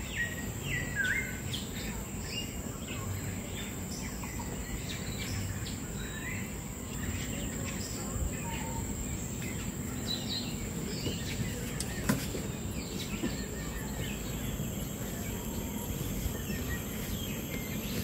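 Many birds calling: short chirps and whistles scattered through the whole stretch, over a steady high-pitched hum and constant background noise.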